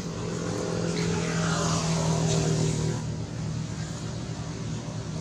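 A motor vehicle engine passing close by. It grows louder to about two seconds in, its pitch falls as it passes, and it fades over the last couple of seconds.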